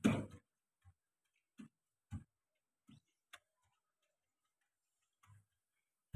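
Dishes and cookware knocking and clinking as they are handled: a louder clatter right at the start, then a handful of single light knocks spaced about half a second to two seconds apart.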